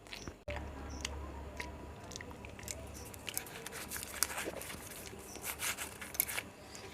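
A person chewing and biting an egg roll close to the microphone: many short clicks and crackles, denser in the second half, over a low hum that starts about half a second in.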